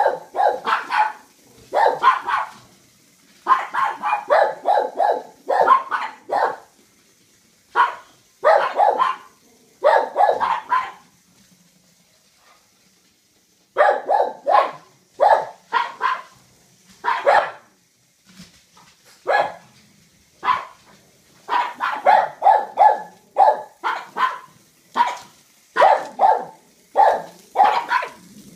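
Pug barking over and over in quick runs of several barks each, pausing for a few seconds about halfway through.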